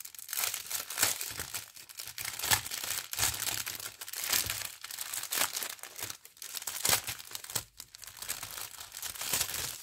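Plastic bags of diamond-painting rhinestones crinkling as they are handled, with irregular crackles throughout.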